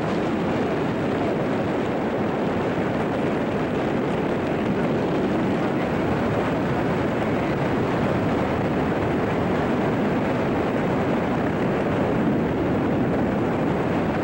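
Steady wind noise buffeting a handheld camera's microphone in the airflow of a tandem parachute descent under an open canopy.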